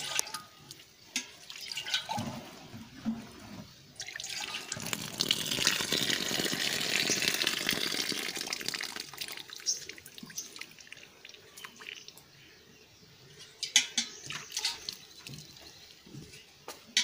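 Cow being milked by hand: milk squirting from the teats into a pail as a watery hiss. The hiss swells and fades through the middle, and a quick run of sharp spurts comes near the end.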